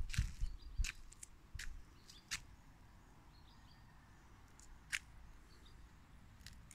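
Quiet outdoor ambience with faint bird chirps; a few crunching steps and knocks in the first two seconds, and one sharp click about five seconds in.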